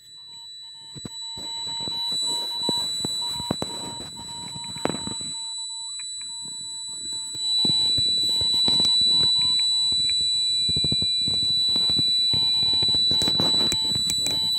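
Morse code from a home-built one-tube regenerative receiver, heard through its earphones held to the phone: a tone of about 1 kHz keyed on and off in dots and dashes over crackling band static, with a steady high whine underneath. From about seven seconds in, a hand rubbing against the phone and earphones adds louder rustling.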